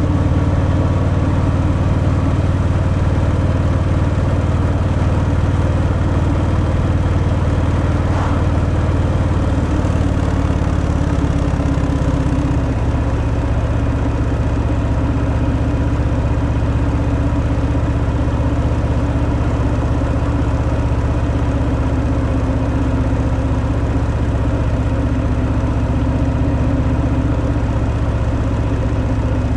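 Harley-Davidson Fat Boy's Milwaukee-Eight 114 V-twin running steadily through its stock exhaust while riding. About twelve seconds in, the engine note drops slightly lower and a little quieter.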